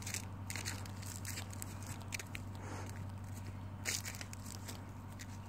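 Footsteps crunching through dry crop stubble and dead leaves, an uneven series of crackling steps over a steady low hum.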